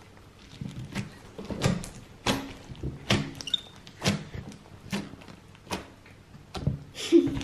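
Fingers squeezing and poking white slime packed with foam beads, giving a run of short, sharp wet crackles and pops, about one or two a second.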